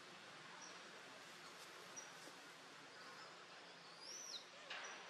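Faint forest ambience: a soft hiss with short high chirps every second or so, and one high rising-then-falling call about four seconds in, followed by a brief rustle.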